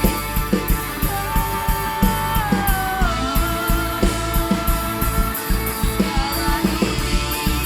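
A live band playing a pop-rock song, with a drum kit keeping a steady beat. A held lead melody wavers on each note and slides down in pitch about two to three seconds in.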